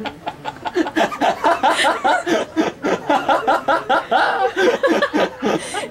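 Parrot laughing: a rapid, continuous run of short chuckling calls, several a second.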